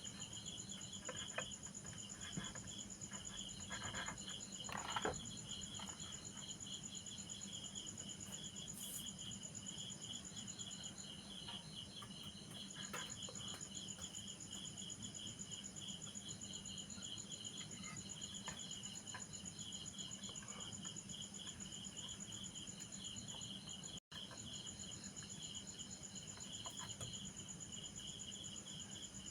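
Crickets chirping in a steady, fast pulsing trill over a low steady hum, with a few light clicks and knocks of handwork, the loudest about four to five seconds in.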